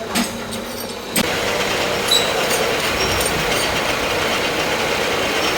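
Metal lathe running: after a few clicks, a steady loud mechanical noise starts suddenly about a second in and keeps on.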